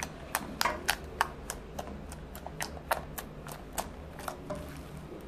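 Clear glue-and-borax slime giving off sharp little clicks and pops as fingertips press and poke into it, about three a second, thinning out near the end.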